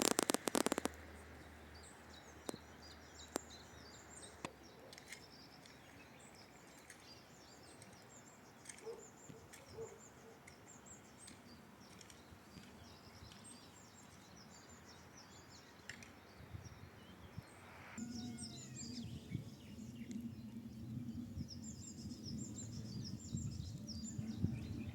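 Songbirds chirping and twittering in the background, many short high calls overlapping. Right at the start there is a brief, loud crackling burst, and about three-quarters of the way in a steady low rumble joins.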